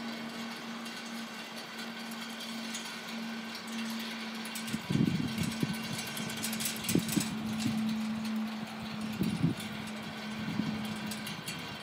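Strong wind gusting against the microphone, in irregular low rumbling bursts from about five seconds in, over a steady low hum.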